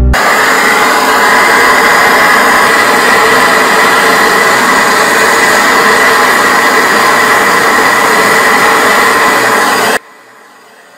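Handheld gas torch flame burning with a loud, steady hiss, cutting off abruptly near the end.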